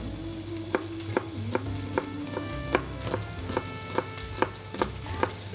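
Chef's knife dicing a shallot on a plastic cutting board, a sharp tap each time the blade strikes the board, about two a second.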